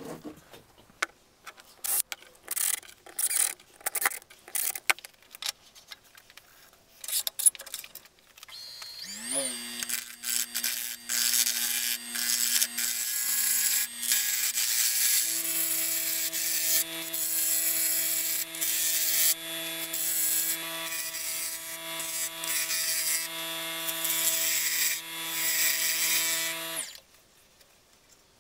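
Short scrapes and knocks of wood being handled, then an Axminster wood lathe's motor spins up with a rising whine. It runs with a steady hum while a gouge cuts the spinning spalted wood with a rough, scratchy hiss. The motor tone shifts about halfway through, and everything cuts off suddenly near the end.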